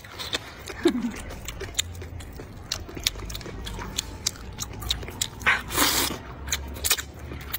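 Close-up eating of thick noodles in a spicy broth: wet mouth clicks and chewing throughout, with one long loud slurp of noodles about five and a half seconds in.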